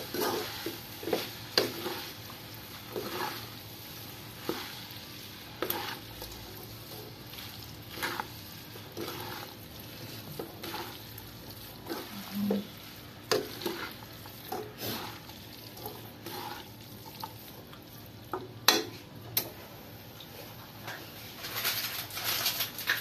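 Wooden spatula and fork tossing and mixing spaghetti in a non-stick wok, with irregular scrapes and knocks against the pan over a faint steady sizzle.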